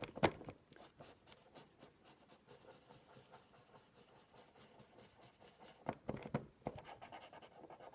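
Felt tip of a two-way glue pen scratching and rubbing faintly across a glassine paper bag as glue is spread, with a few sharper taps about six seconds in.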